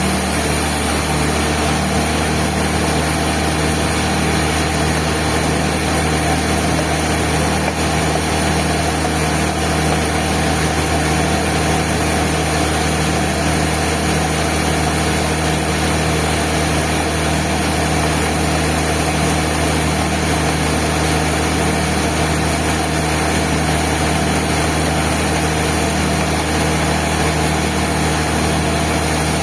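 Band saw mill running steadily, with a constant low machine hum under an even mechanical noise.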